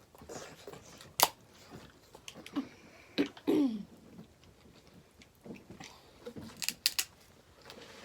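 Chewing and eating sounds with a few sharp cracks of king crab leg shells being snapped open, the loudest about a second in and a quick cluster of three near the end. A short falling vocal sound comes about midway.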